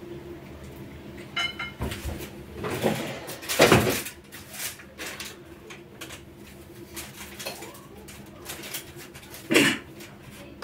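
Kitchen handling sounds of bread being laid out: scattered knocks and rustles, loudest about four seconds in and again near the end, over a low steady hum.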